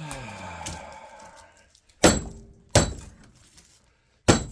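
Hammer blows on a small scrap transformer's steel core, breaking it apart to free the windings: a short grating sound, then three sharp metallic strikes with a brief ring.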